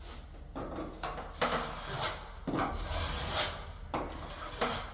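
Steel finishing trowel scraping slightly watered-down filler along the wall-to-ceiling corner, in a series of short scraping strokes about a second apart.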